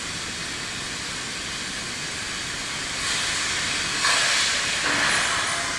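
Steady hiss of noise with no distinct events, swelling in the higher range about three seconds in and again in the last couple of seconds.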